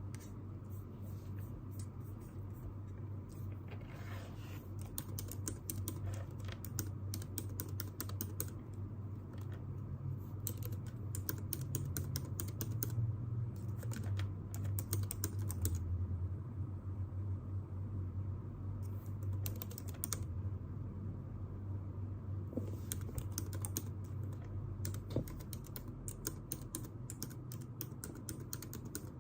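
Typing on a computer keyboard: quick runs of key clicks broken by short pauses, over a steady low hum.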